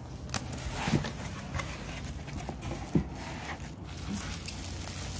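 Cardboard box being opened by hand and the bubble wrap inside handled: a few scattered knocks of the cardboard, the loudest about three seconds in, over crinkling rustle.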